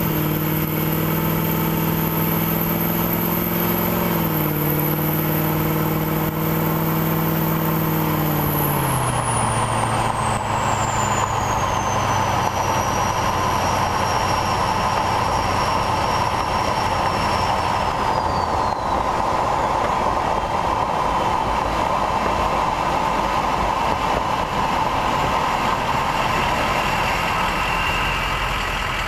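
2003 6.0L Power Stroke diesel, straight-piped, held above idle with its turbo whistling high, then let off: the engine's note steps down about four seconds in and drops to idle near nine seconds. The turbo whistle falls in pitch as it spools down, holds, then falls again, while the engine idles on underneath. The whistle is loud because the 2003 turbine wheel has fewer fins than later years.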